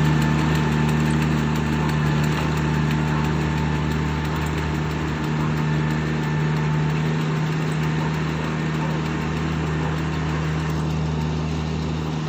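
Riding rice transplanter's small engine running steadily as the machine plants seedlings in a flooded paddy, growing slightly fainter as it moves away.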